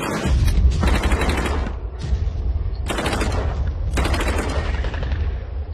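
War-film battle sound: several long bursts of rapid automatic gunfire over a steady low rumble.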